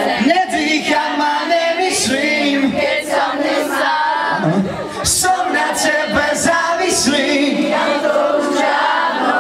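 Concert audience singing along together, many voices at once, mixed with crowd noise.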